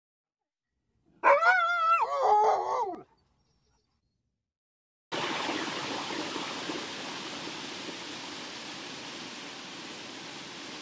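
A dog howling for about two seconds, its pitch wavering and then dropping away. After a short silence, the steady rush of a whitewater cascade starts suddenly about five seconds in and runs on.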